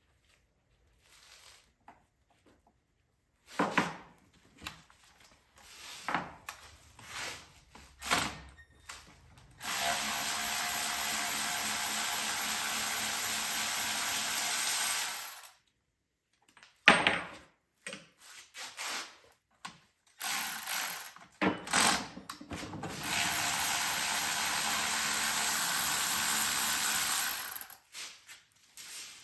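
A power tool running in two steady runs of about five seconds each, with short knocks and clinks of tools and parts before, between and after them.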